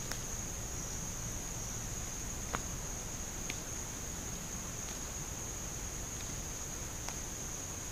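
A steady, high-pitched drone of chirring insects in the woods, unbroken throughout. A few faint clicks sound through it.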